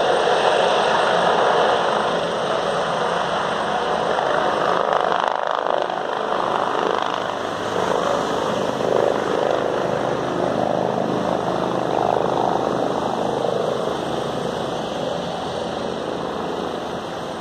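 Helicopter flying low, a steady rotor and engine noise that slowly fades toward the end.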